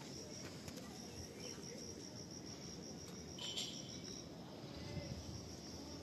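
An insect chirping in a steady run of evenly spaced high-pitched pulses, about five a second, that stops about four seconds in, over a steady low background noise. One brief sharp click comes a little past three seconds in.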